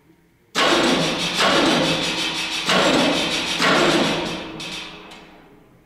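Background music with struck chords that ring and fade, starting suddenly about half a second in and re-struck roughly every second.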